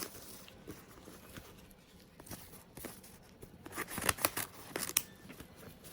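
Packaging being handled by hand: light crinkling, then a run of sharp tearing and crinkling rustles about four seconds in.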